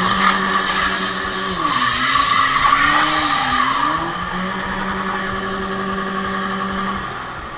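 Minivan engine held at high revs while its rear tyre spins in place on the asphalt, a wheelspin burnout with tyre squeal and smoke. The engine note sags and wavers a couple of seconds in, holds steady again, then drops off near the end.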